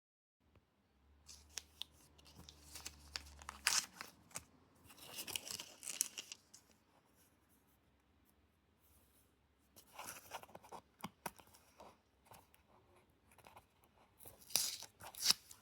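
Product packaging being opened by hand: spells of tearing and crinkling with sharp clicks, separated by quieter pauses, loudest at the end.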